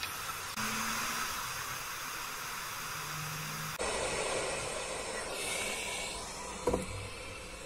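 Hot air gun blowing a steady hiss of hot air onto a resistor's failed solder joint on an ECU circuit board, reflowing it. The hiss shifts in tone abruptly about four seconds in, and a short knock comes near the end.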